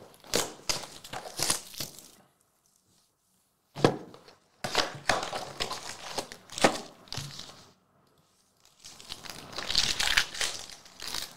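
Trading-card packaging torn open and crinkled by hand: a cardboard hobby box peeled open and a card pack wrapper ripped, in three bursts of tearing and crinkling with short quiet pauses between them, a sharp rip about four seconds in.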